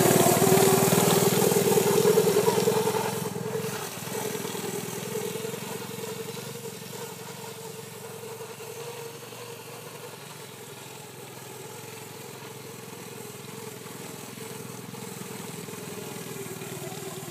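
Polaris youth snowmobile's small engine running as it pulls away at low speed. Its steady whine is loud at first, fades after about three seconds as the sled moves off, then stays faint and even.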